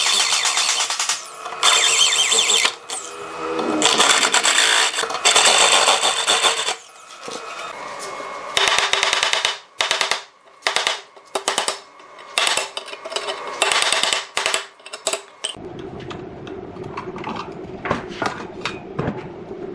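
A drill-driven hole saw cutting through a steel square tube: a loud, screeching cut broken by short pauses for about seven seconds. After that comes a run of sharp metal clicks and taps as a ribbed steel rod is worked in the fresh hole, dying down near the end.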